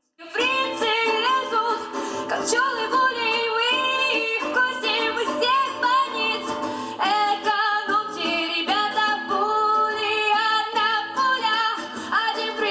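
A woman singing a song with instrumental accompaniment, holding long notes with vibrato.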